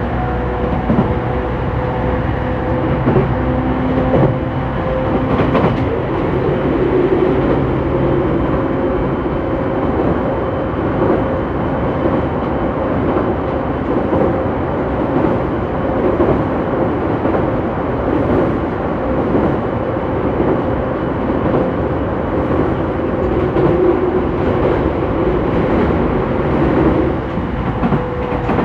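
Running sound inside a JR East E231-800 series electric train, heard from directly above the traction motors of a motor car. The train runs at a steady speed: a constant rumble of wheels on rail with one steady tone held throughout, and a couple of sharp clacks about four and five and a half seconds in.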